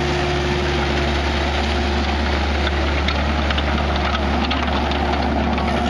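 Kubota KX121-2 mini excavator's diesel engine running steadily as the machine turns on its tracks over gravel, with a few short clicks and clanks from the undercarriage in the middle.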